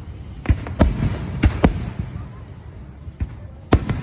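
Aerial fireworks bursting: a quick run of sharp booms over a low rumble, then a short lull and two or three more bangs near the end.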